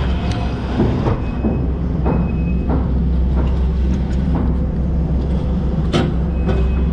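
Kubota SVL90-2 compact track loader's diesel engine running steadily under load, with scattered clanks and knocks from the machine as it works, the sharpest about six seconds in.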